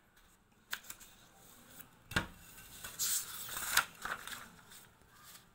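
Sheets of paper being handled and moved to bring a fresh page under the pen: a sharp tap about two seconds in, then about a second of paper rustling and sliding.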